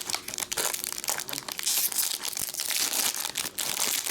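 A foil trading-card pack wrapper being torn open and crinkled in the hands, a dense crackling that goes on throughout.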